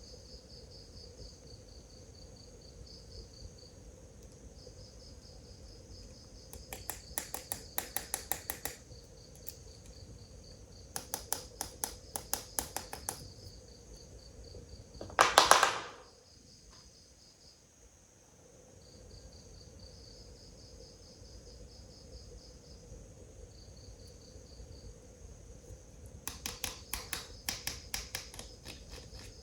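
Crickets trilling steadily in a high, pulsing chirr. Three runs of rapid clicking break in, and one loud, brief rushing burst comes about halfway through.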